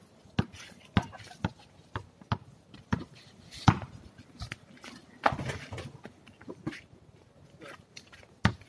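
A basketball bouncing on a concrete court: about two bounces a second for the first three seconds, then a few louder, sparser bangs, the loudest about three and a half seconds in.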